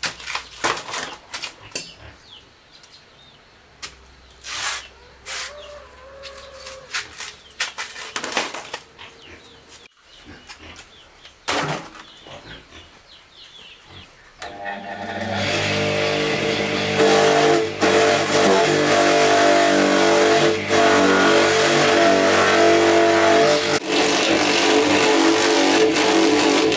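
Scattered knocks and clicks. About halfway through, an engine comes in, rising over a second or so, then runs steadily and loudly to the end.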